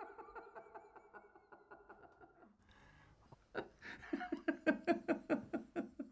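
An old man laughing in a run of short chuckles that trail off, a breath drawn about three seconds in, then a second, louder run of chuckling.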